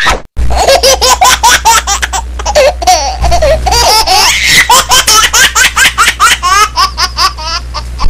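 High-pitched laughter in quick, rapid bursts over a steady low hum.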